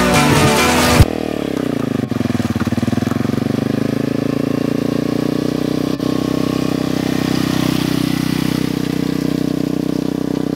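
An engine running with a pulsing, pitched note that sags about two seconds in and then holds steady. Music plays for about the first second, then cuts off.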